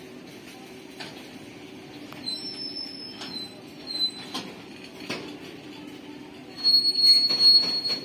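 Freight train of covered goods wagons rolling past at close range: a steady rumble with occasional knocks from the wheels, and high-pitched wheel squeal that comes and goes, loudest for about a second near the end.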